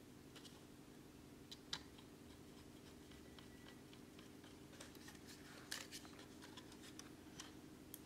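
Small screwdriver driving screws into a laptop hard drive bracket: faint scattered ticks and clicks of the bit and screws, the sharpest about two seconds in and a few more close together near the end, over a steady low hum.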